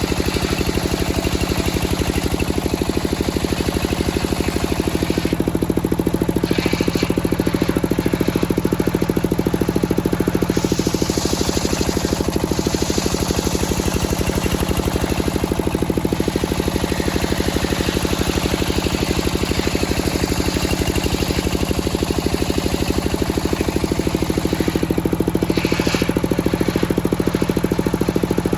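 Circular sawmill running. Its engine drones steadily with fast, even pulses, and a higher hiss dips and comes back a few times.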